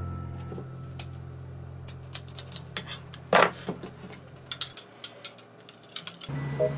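Kitchen clatter: a string of small clicks and clinks of utensils and dishes, with one louder short scrape a little past the middle. Soft background music runs underneath, dropping out near the end and coming back just before the close.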